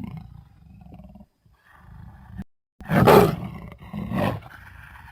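Creature sound effects: a low growl for about two and a half seconds, then after a short pause two loud roars, the first one the loudest.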